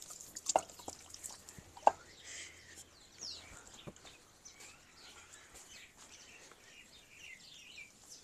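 Fired clay bricks knocking together as they are stacked by hand: two sharp clacks in the first two seconds, then a few faint taps. Birds chirp faintly throughout.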